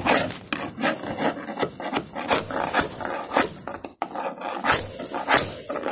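Steel chisel scraping and chipping old fiberglass and filler off a fiberglass boat deck, in short sharp strokes about three a second, with a brief pause about four seconds in.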